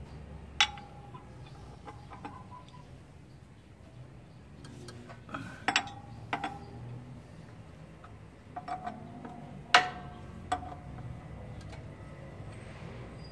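Metal tools clinking against a dump truck's clutch pressure plate as it is unbolted for a clutch lining replacement: a handful of sharp single clinks spread over several seconds, several of them ringing briefly.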